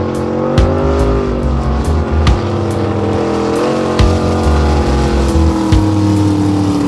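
Mini monster truck's engine running hard at high revs as it speeds across the flat, its pitch wavering twice and then holding steady and sagging slightly near the end. Background music with a heavy bass beat plays underneath.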